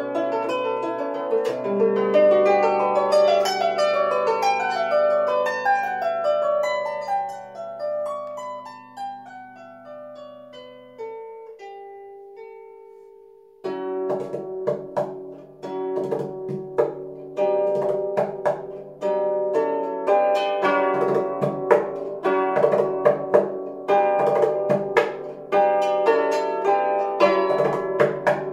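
Solo lever harp played by hand: descending runs of plucked notes that die away over the first ten seconds or so into one held note. About halfway through the playing comes back suddenly, louder, with sharp rhythmic plucked chords.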